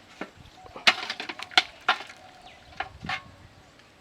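Kitchen knife chopping on a cutting board: an irregular run of sharp knocks, several coming close together about a second in.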